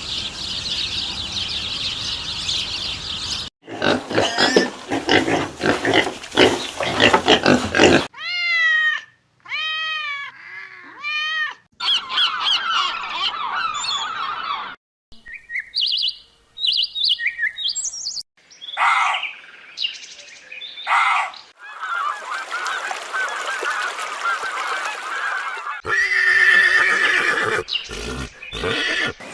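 A string of short animal and bird-call clips cut one after another, with three pitched, rise-and-fall honk-like calls about eight to eleven seconds in and bursts of chattering and chirping around them.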